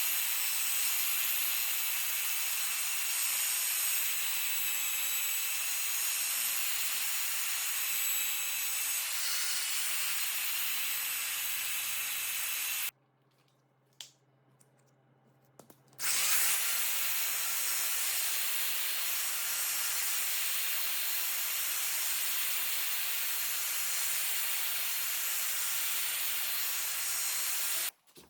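Electric power tool running steadily with a high-pitched whine, switched off about halfway through and started again a few seconds later, then stopped near the end.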